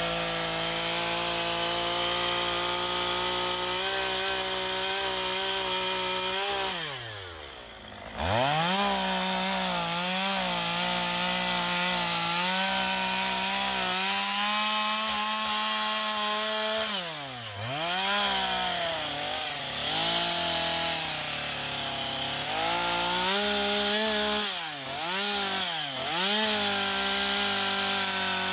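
Two-stroke carving chainsaw running at high revs, cutting lines into wood. The engine's pitch holds steady, then drops sharply off the throttle and climbs back, once about a quarter of the way in, again just past halfway, and twice in quick succession near the end.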